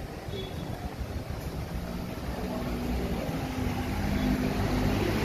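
A motor vehicle's engine running close by, its low hum growing louder from about two seconds in as it approaches, over general street noise.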